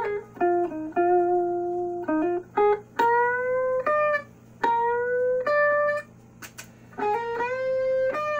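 Jackson KVXMG electric guitar played through an Orange Micro Dark hybrid tube amp and PPC108 speaker cab with high-gain Black Truck distortion. It plays single-note lead phrases with sustained notes bent upward in pitch. Between phrases the sound cuts sharply to a low, steady amp hum, as the noise gate closes.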